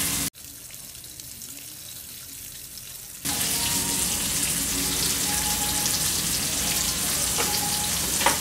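Bacon strips sizzling in a frying pan, a steady hiss that drops away abruptly about a third of a second in and comes back just as suddenly about three seconds later. A short click sounds near the end.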